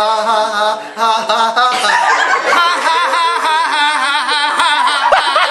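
Group of young men laughing hard, with loud pulsing laughs that grow fuller about two seconds in.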